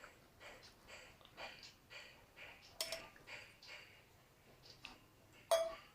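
Cups and kitchen utensils being handled: soft scraping strokes about twice a second, then two sharp clinks, the second louder with a short ring, near the middle and near the end.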